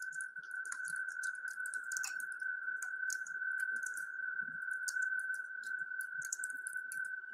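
A steady high-pitched electronic tone that holds one pitch, with faint irregular crackling clicks over it.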